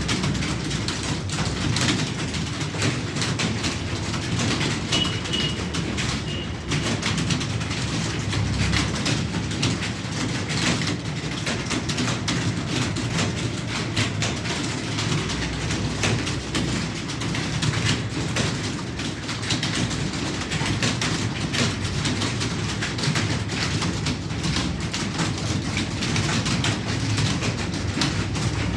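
Rapid, continuous typing on a computer keyboard, many key clicks a second over a steady low hum.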